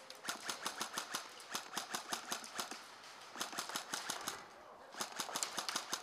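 Airsoft guns firing in rapid bursts of sharp clicking shots, about eight a second, in three runs with short breaks about three seconds and four and a half seconds in.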